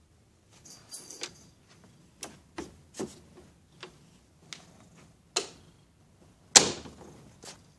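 A series of sharp, irregular clicks and knocks, about a dozen of them, the loudest near the end.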